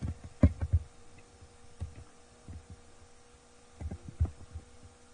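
Scattered soft low thumps, some in quick runs of two or three, over a faint steady electrical hum.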